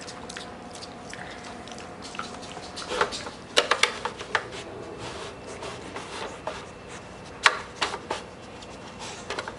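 Mini pig working a plastic puzzle treat feeder with its snout: scattered plastic clicks and knocks as the sliding and lifting pieces move, with a cluster about three to four seconds in and a single sharp knock about seven and a half seconds in.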